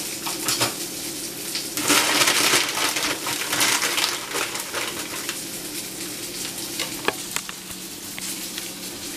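Plastic bag of tortilla chips being opened and crinkled, with two loud bouts of crackling about two and four seconds in, then softer rustles and clicks.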